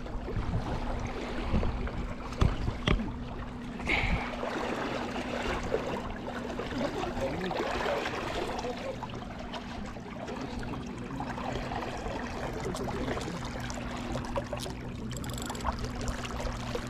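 Water lapping with an even wash of outdoor noise, over a steady low hum; a few short knocks in the first few seconds.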